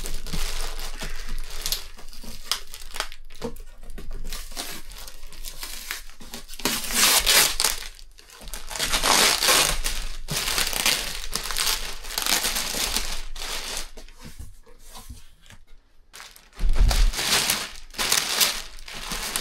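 Clear plastic packing bag crinkling and rustling in uneven handfuls as it is pulled and folded back inside a cardboard shipping box. A heavy thump comes near the end as the wrapped printer is lifted and moved.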